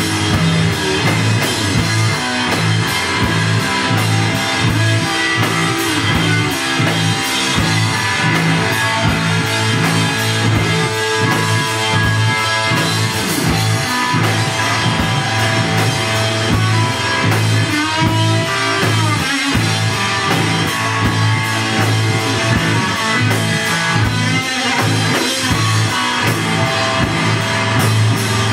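A live rock band playing loud and dense: electric guitar over a steadily hit drum kit and a heavy, pulsing bass line, with bending guitar notes about two-thirds of the way through.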